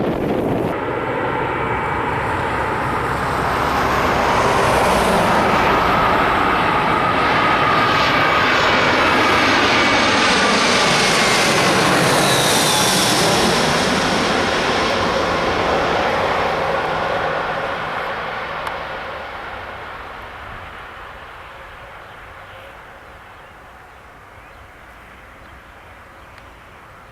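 Jet airliner passing close by: the engine noise builds to a peak about halfway through, its whine drops in pitch as the plane goes past, then fades into the distance.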